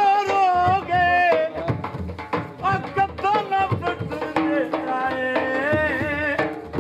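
Dhol drum beaten in a jhumar rhythm under a singer's long, wavering held notes that glide up and down: Saraiki folk music.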